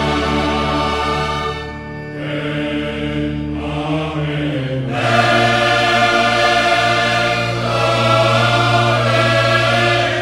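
Choir and orchestra performing slow sacred Passion music. Long held chords sit over a sustained low bass, and the harmony shifts about two and five seconds in.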